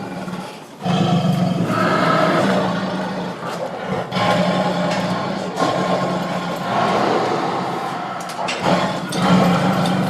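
Tiger roaring and growling in a run of long, rough roars, with a short lull less than a second in before the next roar starts.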